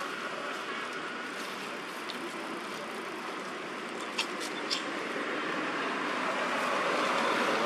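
Steady outdoor background noise, with three short dry crackles about four seconds in as a baby macaque scrambles over dry leaf litter.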